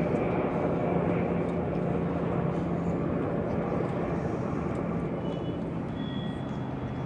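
Heavy lifting crane's engine running steadily under load, a low mechanical drone with a constant hum that shifts lower about six seconds in.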